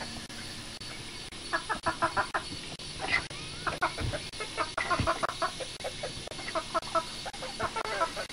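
Domestic turkey gobbling: several short bursts of rapid rattling pulses.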